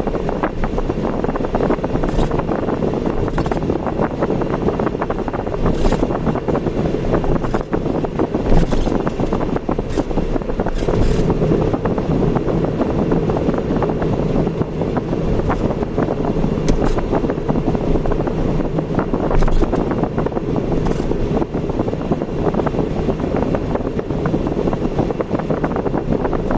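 Steady road and engine noise of a car being driven, with frequent small knocks through it.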